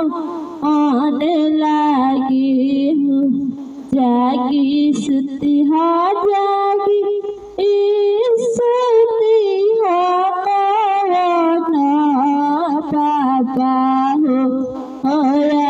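A woman singing a Hindi daughter's-wedding folk song (beti vivah geet) into a handheld microphone, her line wavering with ornaments, with short breaks for breath between phrases.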